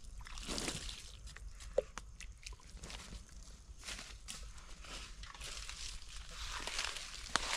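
Footsteps and rustling in dry leaf litter, with scattered light knocks and scrapes. There is a short squeak about two seconds in and a sharp click near the end.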